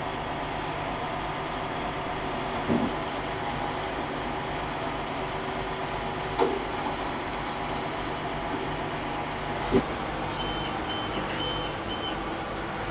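Diesel engine of a small construction machine running steadily, with three sharp knocks a few seconds apart. Near the end come four short, high beeps.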